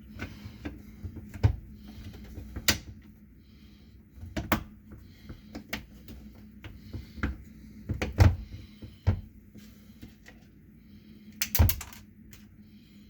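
Scattered clicks and knocks of hard drill parts being handled and fitted together by hand during reassembly, with a handful of louder knocks, over a steady low hum.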